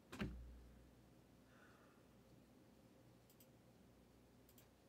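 Near silence, with a soft thump just after the start and a few faint computer mouse clicks, in quick pairs, later on.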